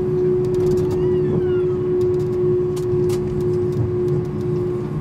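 Airbus A320 cabin noise while taxiing: the jet engines' steady hum at low power over the rumble of the aircraft rolling. A brief falling whine comes about a second in, with a few faint rattling clicks.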